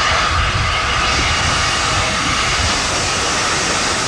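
Steam locomotive moving slowly past at close range: a steady loud hiss of escaping steam over a low, uneven rumble.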